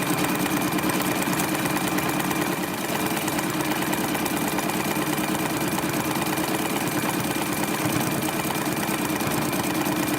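Sewing machine running steadily, its needle stitching fast and evenly through the quilt top, batting and backing during free-motion stippling. It eases briefly about two and a half seconds in.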